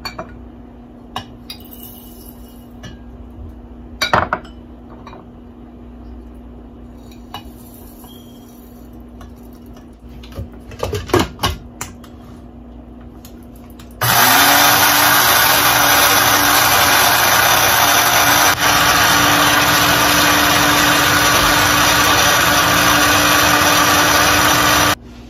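Small electric spice grinder grinding roasted spice seeds to powder. The motor starts about 14 seconds in, spins up within a moment, runs steadily and loudly for about 11 seconds, then stops. Before it starts there are only a few faint handling clicks.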